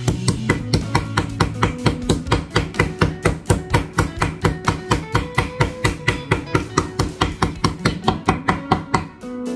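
Meat mallet pounding pork slices thin, a fast, even run of knocks about five a second that stops about nine seconds in. The pounding flattens and tenderises the meat for rolling.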